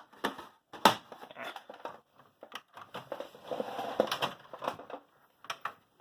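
Handling noise around a freshly ejected DVD: a few sharp plastic clicks, the strongest about a second in, and a stretch of rattling and scraping in the middle.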